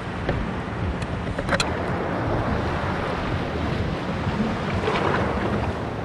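Wind buffeting the microphone over the steady wash of sea waves on a rocky shore, with a few light clicks.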